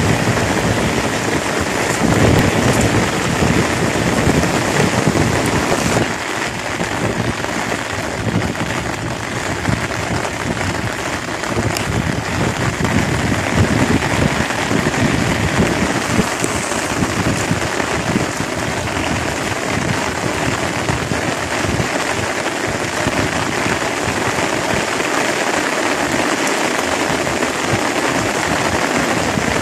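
Steady rain falling on pond water, with splashing from wading through shallow water during the first few seconds.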